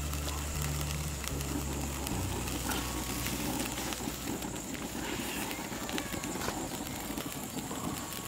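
Low background music notes that end about two seconds in, followed by outdoor ambience: wind buffeting the microphone, with a faint steady high-pitched hum and a few light clicks.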